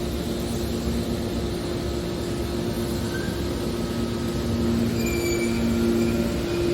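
Hydraulic aluminum baler running: a steady machine hum that grows a little louder about five seconds in, with a few brief high squeaks near the end.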